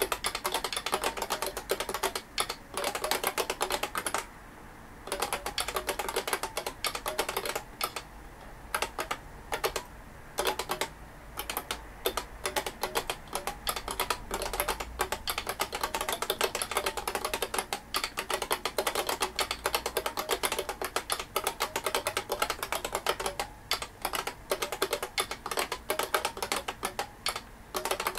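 IBM 5251 beam spring keyboard being typed on fast and continuously, a dense run of key clicks. It breaks off briefly about four seconds in and again around eight and ten seconds in.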